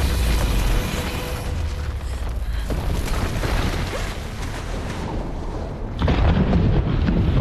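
Film sound effects of a huge explosion: a deep boom and rumble that eases off after about a second. About six seconds in comes a louder low, muffled rush as the scene goes underwater.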